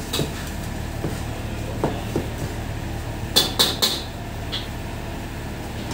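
Cleaver knocking on a wooden cutting board as green chilies are chopped, a few uneven chops, then a quick run of sharp, bright clicks about three and a half seconds in. A steady low hum runs underneath.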